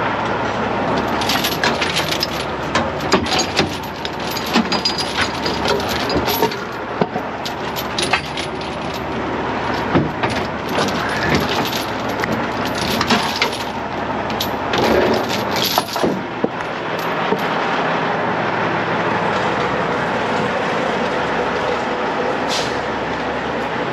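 Heavy-duty 50-ton rotator wrecker's diesel engine running steadily, with many sharp metallic clinks and knocks of rigging work over it that die away about two-thirds of the way through.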